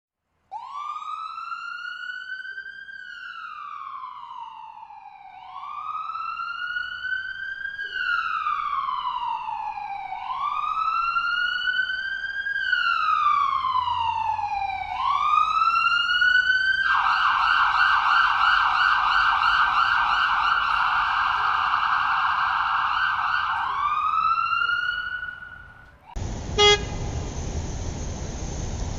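Emergency-vehicle siren sound effect: a slow wail that rises and falls about every five seconds, switching about halfway through to a fast yelping warble, then one more rising wail. Near the end it cuts abruptly to a different effect, a steady noise with a short loud honk.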